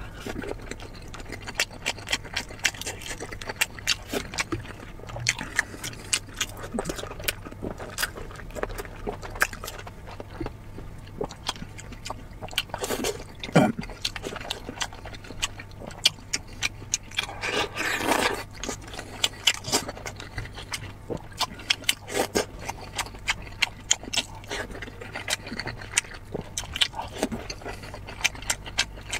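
Close-miked eating sounds: wet chewing, lip smacks and mouth clicks as a man eats braised pork belly and boiled dumplings, a rapid irregular stream of short smacks with one longer, louder noisy sound a little past halfway. A low steady hum runs underneath.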